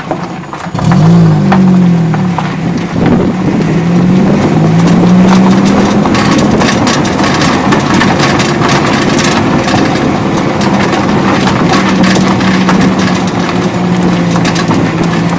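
Ford Focus II driving, its engine running, with a metallic knocking rattle from the rear: many irregular clicks throughout. The rattle is traced to a brake pad.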